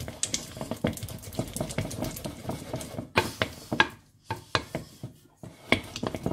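Wooden spoon beating butter in a mixing bowl: rapid, irregular knocks and scrapes against the bowl, easing off briefly about four seconds in before picking up again.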